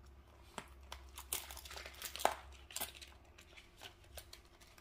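Clear plastic cash-stuffing binder being handled: its plastic envelope pages crinkle and its rings and clasp click in scattered soft, short sounds, the loudest about two seconds in.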